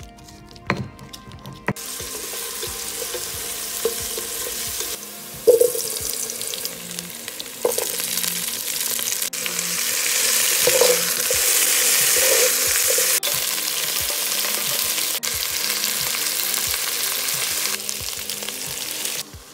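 Two knocks of a stone pestle in a granite mortar. Then green beans and potato chunks sizzle loudly in hot oil in a metal pot. A spatula stirs them and now and then knocks and scrapes against the pot. The sizzling cuts off just before the end.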